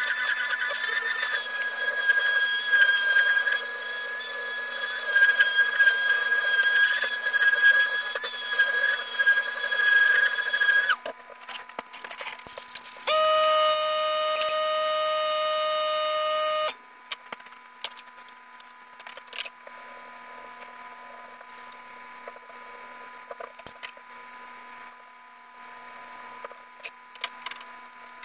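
Electric sander running with a steady high whine against the plywood axe handle for about eleven seconds, then stopping. A few seconds later a loud, steady pitched tone sounds for about three seconds, followed by faint scratching and tapping of hand sanding.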